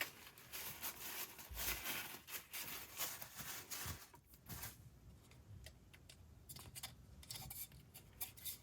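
Faint scratching, rustling and light ticks of small 3D-printed plastic parts being handled, with a glued spring tab being seated in the centerpiece. It is busier in the first half and sparser after.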